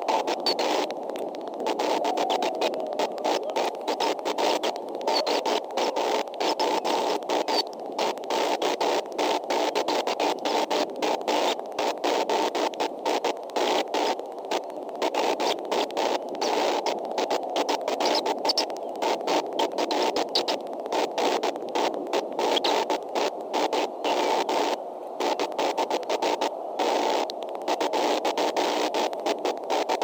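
Steady static-like hiss and rushing noise on a live nest-cam audio feed, repeatedly breaking up in rapid brief dropouts.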